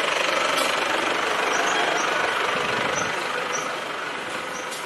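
Pickup truck engine running close by, its noise easing off about three seconds in. Short high chirps repeat over it.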